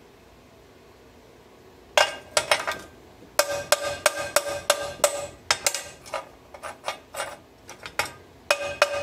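Steel diamond-plate sheet struck and tapped over and over with a hand tool while plasma-cut exhaust flanges are worked loose. The strikes are irregular, each with a short metallic ring at the same pitches, and they start about two seconds in.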